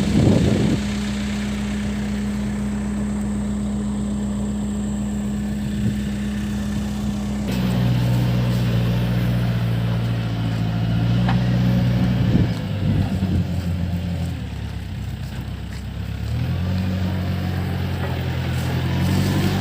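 Case backhoe loader's diesel engine running under work, its speed stepping up about seven seconds in, dropping back around fourteen seconds and picking up again a couple of seconds later. A brief knock sounds around twelve seconds.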